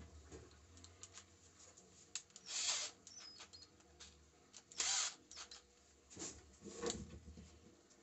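Small handling clicks and two short rasping bursts, about two and a half seconds apart, as the bit is changed in a cordless drill's keyless chuck.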